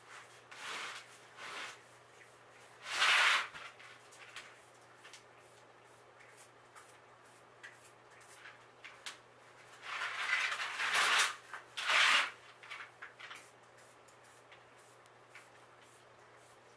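Leaves and stems of potted cannabis plants rustling as they are handled and bent by hand, in a few short bursts with a longer stretch near the end.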